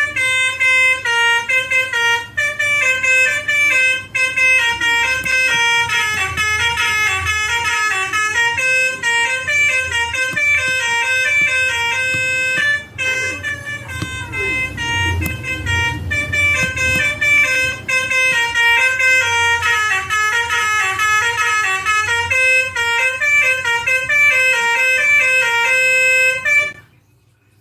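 Electronic telolet basuri bus horn, an Arduino-driven sound player, playing a running melody of quick stepped horn notes. There is a short break about halfway, and the sound cuts off suddenly near the end.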